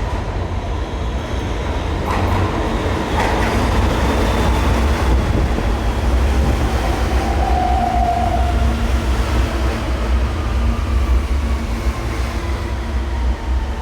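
R160 subway train running with a steady low rumble. Two knocks come a few seconds in, a brief squeal follows past the middle, and a whine slowly falls in pitch throughout.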